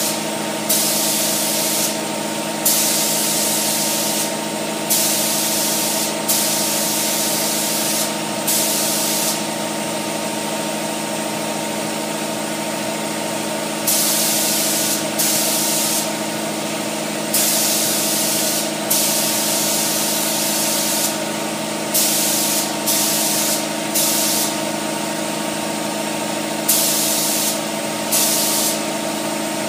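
Paint being sprayed in repeated short passes, each hiss lasting about half a second to two seconds, with a pause of several seconds around the middle. A steady mechanical hum runs underneath.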